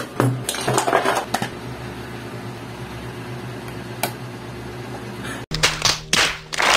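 Hands handling a boxed AMD processor and setting it into a motherboard's CPU socket: packaging rustles in the first second or so and a light click about four seconds in, over a steady low hum. About five and a half seconds in the sound cuts abruptly to a few loud, noisy bursts.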